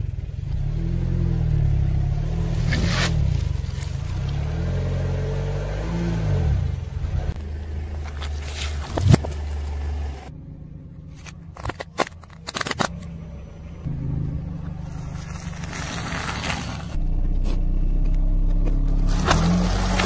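A car's engine runs slowly, its pitch rising and falling, while a tyre rolls onto and crushes objects with scraping and crackling. There is one sharp loud crack about nine seconds in and a few more snaps a few seconds later.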